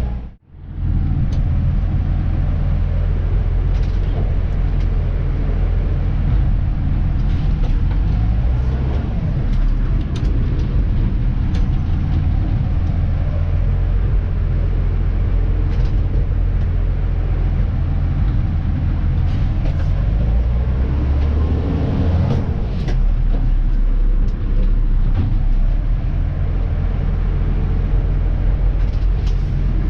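Diesel engine of a Dennis Elite 2 garbage truck running steadily as the truck is driven, heard from inside the cab, with scattered light clicks and rattles. The sound drops out briefly at the very start.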